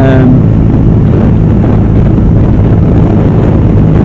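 Yamaha YZF-R125's single-cylinder four-stroke engine running at a steady cruise, with wind rushing over the microphone.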